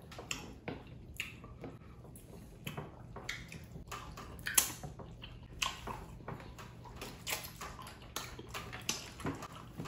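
Wet eating sounds of slimy okra soup and amala: chewing, lip smacks and slurps, an irregular run of short wet clicks.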